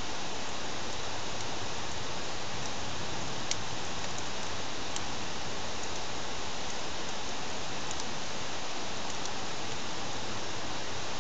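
Campfire burning with a steady hiss and a few sharp pops and crackles, the clearest about three and a half seconds in; the firewood is thought to be cedar.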